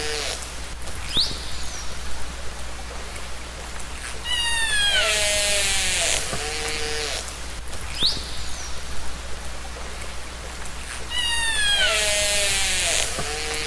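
Orca (killer whale) calls: descending whistled calls with a pulsed, buzzing part and a short rising whistle, over a steady hiss of water noise. The same short recording repeats about every seven seconds.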